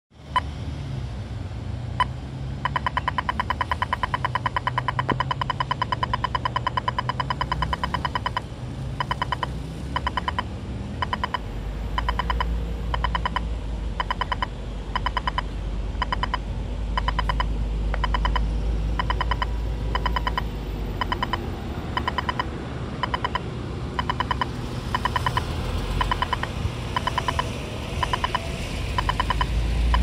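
Audible signal of a Singapore pedestrian crossing push-button unit. Two single clicks come near the start, then a fast run of ticks for about six seconds, then slower, evenly spaced ticks, about one and a half a second.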